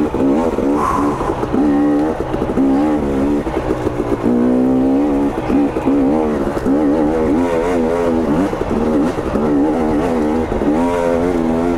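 2022 KTM 250 XC single-cylinder two-stroke dirt bike engine under riding load, its pitch rising and falling constantly as the throttle is opened and rolled off.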